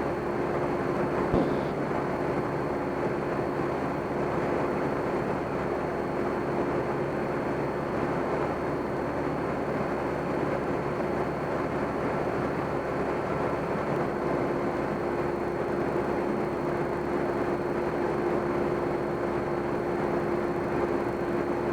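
Cabin noise of a Cessna 172M in flight: its four-cylinder Lycoming O-320 engine and propeller running steadily, with a constant hum over an even drone.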